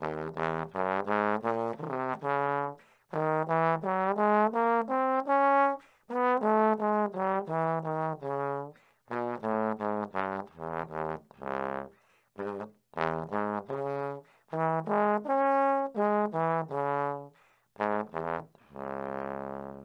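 Trombone playing scales: runs of separate tongued notes stepping up and down, in several phrases with short breaks between them, ending on a longer held note near the end.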